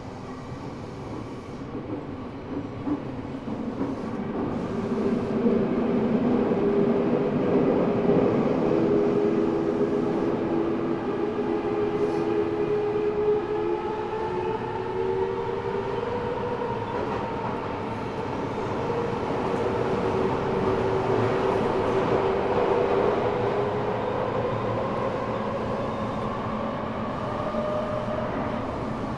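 Interior running sound of an Eidan 6000-series subway car, the prototype car 6301 that carries a high-pitched Mitsubishi three-level VVVF inverter taken from a 7000-series train. The inverter and traction motors give a whine of several tones that slowly rise, sink and rise again over steady wheel and tunnel rumble.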